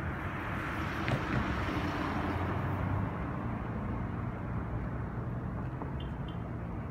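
Outdoor traffic rumble, swelling as a vehicle passes during the first three seconds and then settling back to a steady hum.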